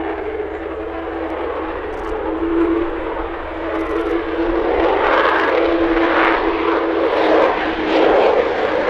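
Lockheed U-2S's single General Electric F118 turbofan at take-off power as the aircraft lifts off and climbs out overhead. A steady whine sits under the jet noise, and the jet noise grows louder and rougher from about halfway through as the aircraft comes closer.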